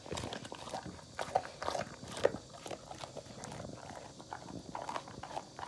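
Presa Canario (Canary mastiff) chewing a raw chicken carcass, the bones cracking in a string of irregular crunches and clicks.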